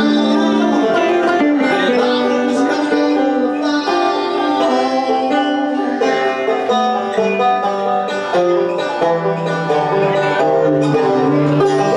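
Live bluegrass instrumental break: a five-string banjo picking fast runs over an electric guitar, with lower guitar notes stepping down through the second half. No singing.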